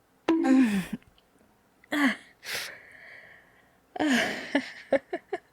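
A woman's wordless vocal reactions: a cry falling in pitch about half a second in and a short sound near two seconds, then a run of short breathy laughs near the end. Between them, about two and a half seconds in, comes a short hissing burst that trails off into a faint steady tone.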